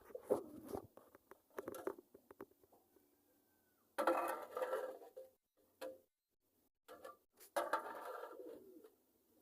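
Fantail pigeons cooing in several separate bouts, each up to about a second long, with short quiet gaps between.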